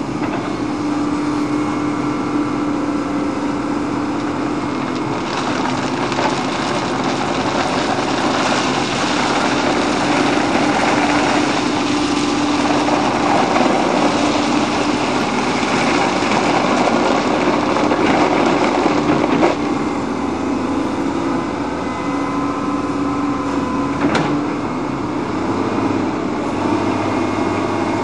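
Wheeled excavator's diesel engine running steadily, getting louder through the middle as the hydraulics work the arm and bucket digging a drainage trench. Two sharp knocks come in the later part.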